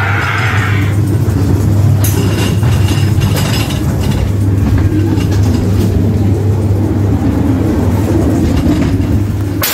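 Ghost train ride car rolling along its track with a steady low hum and rumble. There is a sharp crack right at the end.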